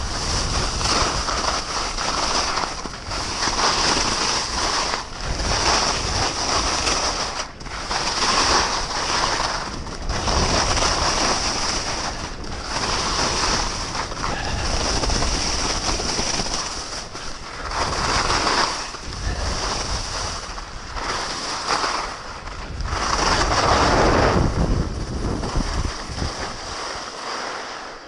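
Skis swishing and scraping across packed snow through a run of turns, the sound swelling and dipping about every two seconds, with wind buffeting the microphone.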